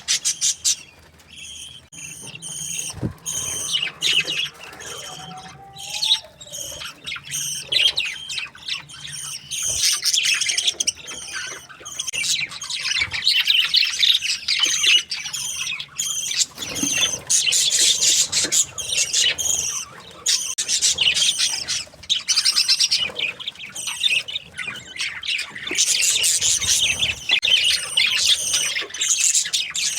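A flock of budgerigars chattering, with dense, rapid chirps and squawks. The chatter is sparser for the first few seconds and grows fuller and louder from about twelve seconds in.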